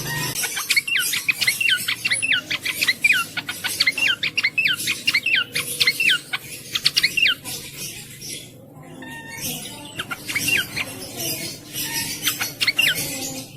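Cingcoang (jongkangan) songbird singing in fast runs of short, sharply falling whistled notes. The song breaks off for about a second past the middle, then starts again.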